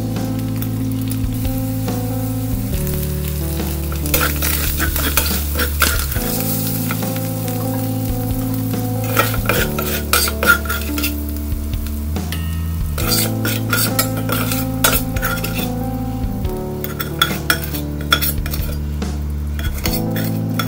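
Food sizzling in a pan while a utensil stirs and scrapes it, with irregular clinks against the pan. Soft background music with slow chord changes every few seconds runs underneath.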